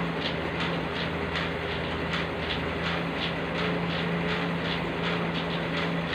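Elliptical cross trainer being pedalled: a regular rhythmic mechanical clatter about three times a second with the strides, over a steady hum.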